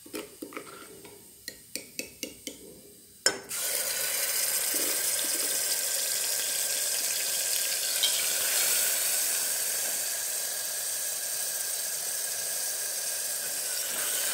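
A string of sharp ticks, then a knock about three seconds in as pounded garlic-ginger-onion masala paste goes into hot mustard oil with cumin in an aluminium pressure cooker. Right after the knock a loud, steady sizzle of the paste frying begins.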